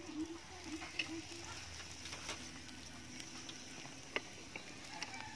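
Eggs sizzling in cut-open beer cans on a grill, with a steady soft hiss and scattered small pops and crackles.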